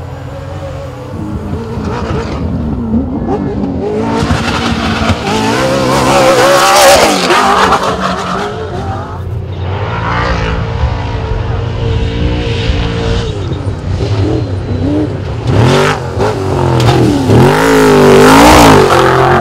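Off-road trophy truck racing flat out, its engine revving up and down with throttle and gear changes as it approaches. It is loudest near the end as the truck passes close, sliding through loose dirt.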